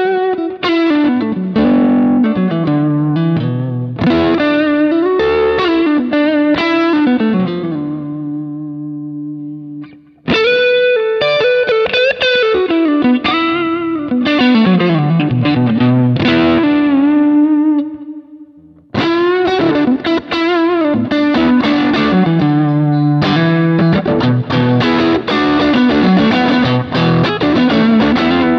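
Distorted electric guitar played through a Kemper Profiler amp profile: three lead phrases of moving notes, each ending on a held note, with short breaks about ten and eighteen seconds in. The treble band of the Kemper's graphic EQ is cut to show its effect on the tone.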